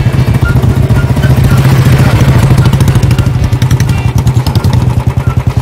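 Old-model Royal Enfield Bullet's single-cylinder four-stroke engine riding past at steady speed, its exhaust beating in a rapid, even thump. It grows louder as the bike comes past, then eases as it rides away.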